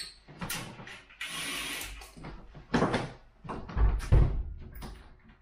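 A window being closed by hand: clicks of the frame and fittings, a rubbing slide a little over a second in, then heavy knocks near three and four seconds in as the frame is pushed shut, the last the loudest.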